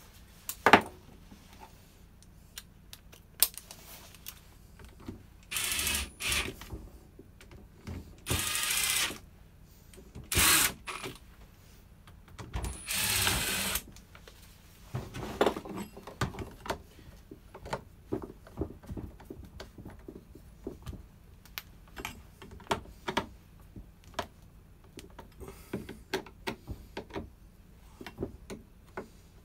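Power drill run in four short bursts, driving in the screws of a chainsaw's pull-start cover. Light clicks and knocks of parts and tools being handled follow.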